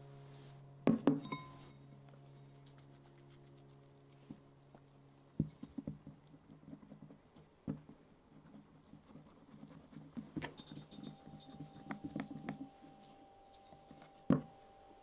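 A spatula stirring sponge batter into melted butter in a small glass bowl: soft scrapes and light ticks against the glass, with a few sharper clinks. A steady low hum cuts off suddenly about five seconds in.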